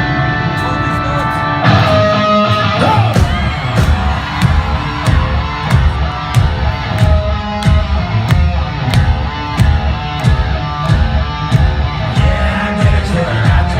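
Live hard rock band playing loud: held guitar chords, then about two seconds in the full band comes in with heavy, steady drum hits and distorted electric guitars.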